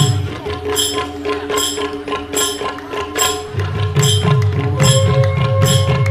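Manipuri pung barrel drums played by a troupe of dancers in a pung cholom drum dance, with a regular pulse of sharp strokes about every 0.8 s and held melodic tones over the drumming. The deep drum strokes thin out early on and come back strongly about three and a half seconds in.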